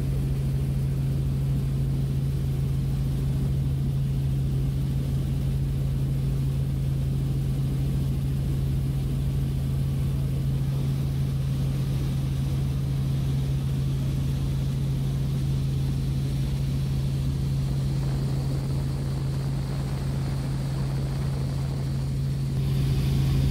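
Helicopter in flight heard from inside the cabin: a steady engine and rotor drone with a strong low hum, growing slightly louder near the end.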